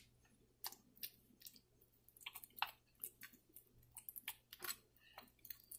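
Faint, scattered clicks and light scrapes of a spoon against a glass bowl as garlic-ginger paste is spread onto pieces of raw fish.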